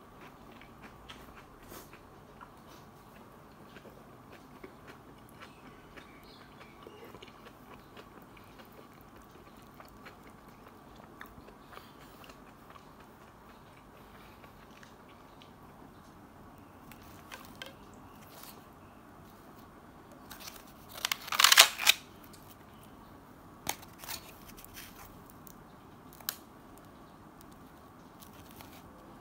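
Quiet room tone with a faint steady hum and scattered light clicks of food and packaging being handled. About 21 seconds in comes a loud noisy burst lasting about a second, followed by a few sharp clicks.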